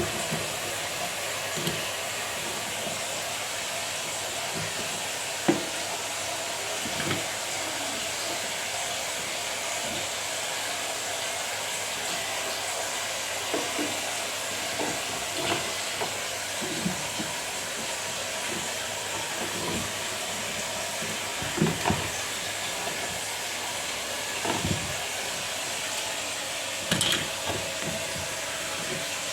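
A steady hiss, with scattered light clicks and knocks.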